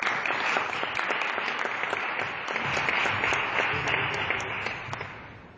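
Small audience applauding, individual claps audible, dying away near the end.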